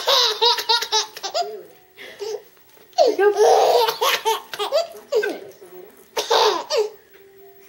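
A young child laughing in about four loud, high-pitched fits with short pauses between, amused by Mom's hiccups.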